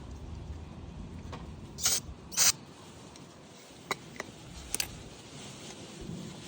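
Two short hissing sprays about two seconds in, then a few light clicks of small lawn mower carburetor parts being handled. Wind rumbles on the microphone during the first couple of seconds.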